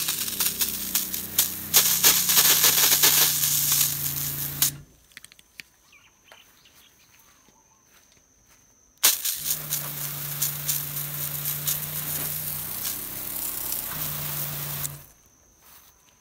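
Water jetting from a garden-hose spray gun onto grass in two bursts of about five and six seconds, with a 12-volt RV water pump humming steadily underneath while the water flows and falling quiet when the spray stops.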